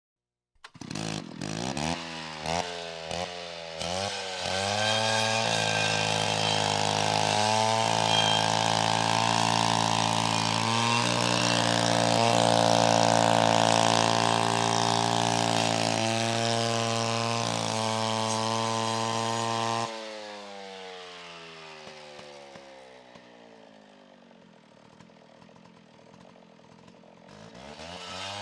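Chainsaw engine starting with a few quick revs, then held at high, steady revs with a few brief dips. At about two-thirds of the way through, the throttle is released and the engine slowly winds down in pitch, then it is revved up again near the end.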